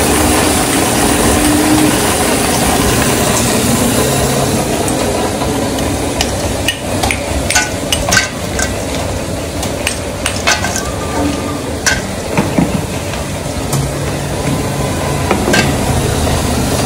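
Motorised lassi churner running steadily, its rod spinning yogurt in a metal pot. From about seven seconds in come a series of sharp knocks and cracks as ice lumps are broken in a steel bowl with a metal rod.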